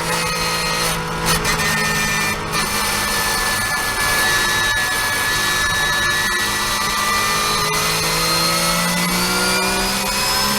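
Porsche 991.1 Cup car's flat-six engine running hard and steadily, its pitch easing down slowly and climbing again near the end.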